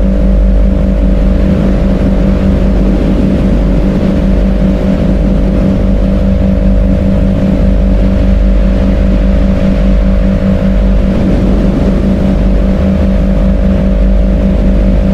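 A steady, loud droning background track: a deep rumble with a few held low tones and a hiss over them. It is the cover sound of a subliminal audio, laid over quiet affirmations.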